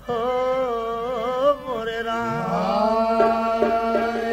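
Opening of a jhumar folk song: a wordless sung opening line that wavers, then glides up into a long held note over a steady drone. A few light drum taps come in after about three seconds.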